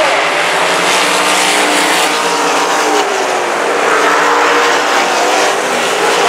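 A pack of RaceSaver sprint cars racing on a dirt oval. Their 305 cubic-inch V8 engines run together at a loud, steady level, with engine pitches rising and falling as the cars pass.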